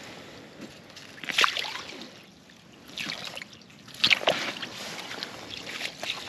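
Water sloshing and splashing in an ice-fishing hole as a crappie is released by hand and slips back into the water, with a few separate splashes.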